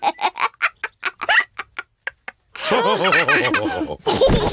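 Cartoon pig characters laughing: a run of short laughs that fades out, a brief pause, then several voices laughing together, with a low thud near the end.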